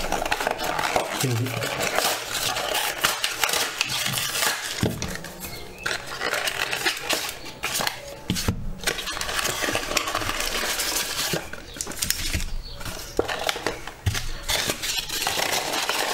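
Cardboard packaging of a Lorcana starter deck being handled and opened by hand: continuous rustling and crinkling with scattered light clicks and knocks.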